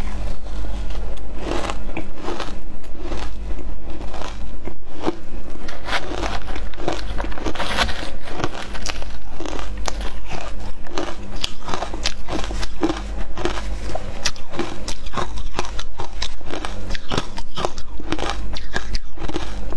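Close-miked crunching of matcha-dusted ice chunks being bitten and chewed, a dense run of crisp cracks that keeps going without a break.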